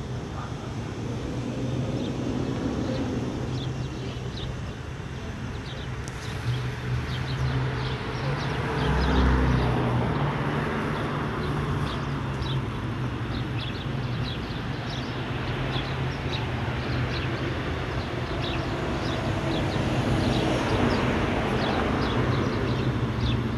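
Outdoor ambience: a steady low hum like a running engine, with a noisy haze and many short high chirps scattered over it from about six seconds in.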